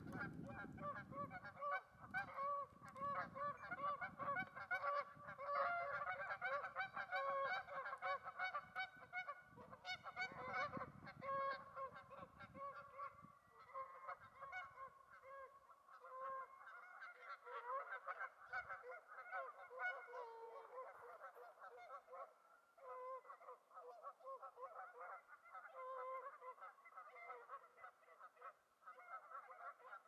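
Canada geese honking over and over, several calls overlapping, thickest in the first half and thinning a little after that.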